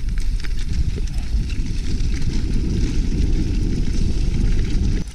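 Strong wind buffeting an action camera's microphone: a loud, steady, low rumble. Scattered light clicks from the bicycle riding over frozen snow sit under it.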